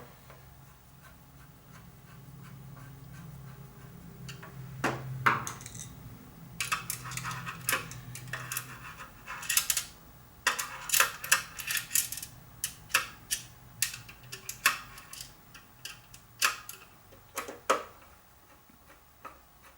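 Small mounting screws being put in and tightened to fix a hard drive inside an NVR's metal case: irregular metallic clicks, ticks and short scrapes.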